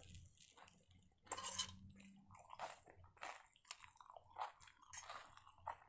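A person chewing a mouthful of food up close to the microphone: irregular wet smacks and crunchy bites, one louder about a second in.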